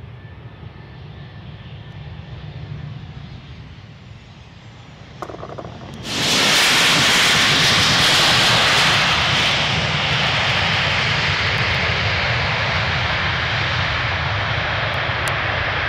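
Boeing 737-800 jet airliner landing. A low engine hum during the final approach gives way, about six seconds in, to a sudden loud rush of jet engine noise that holds through the rollout on the runway, typical of reverse thrust after touchdown.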